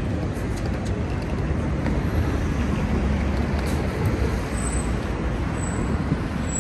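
Steady low rumble of city street noise, like passing traffic, with no clear single event.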